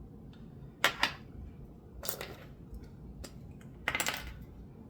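Small hard objects being handled and set down on a work surface: the parts and tools of a gutted lock. There are two sharp clicks close together about a second in, a soft scrape around two seconds, and a quick cluster of clicks near four seconds.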